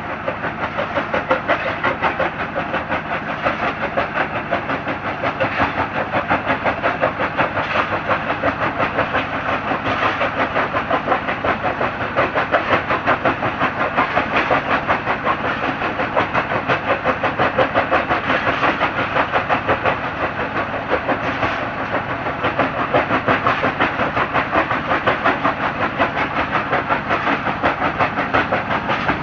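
Mini stone crusher running with a steady, rapid rhythmic clatter.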